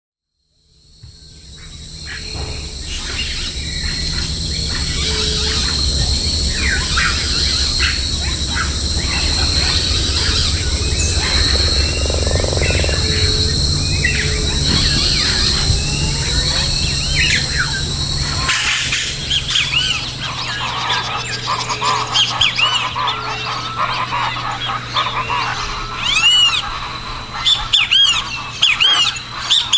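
Wetland soundscape of many birds calling over a steady high drone and a low rumble, fading in at the start. About two-thirds of the way through it changes abruptly: the rumble drops away and a busier chorus of short chirping bird calls takes over.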